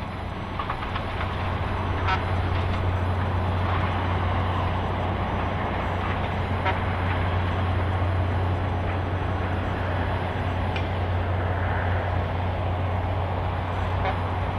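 Asphalt cold milling machine at work, its diesel engine running in a steady drone under the grinding noise of the milling drum as its conveyor loads milled asphalt into a dump truck. The sound fades in over the first couple of seconds and then holds steady.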